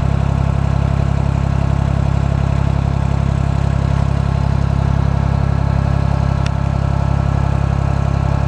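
Small Ford tractor's engine idling steadily, with one faint click about six and a half seconds in.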